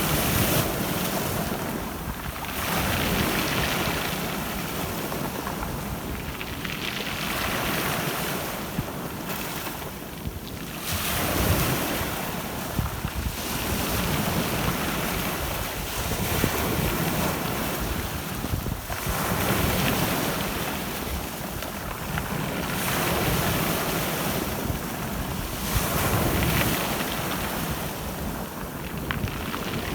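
Black Sea surf: waves breaking and washing up the shore, swelling and ebbing every few seconds, with wind buffeting the microphone.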